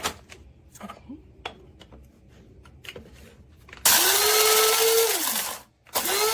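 Proctor Silex electric blade coffee grinder pulsed: a few light clicks, then its motor whirs up to speed, holds about a second and a half, spins down, and starts again near the end.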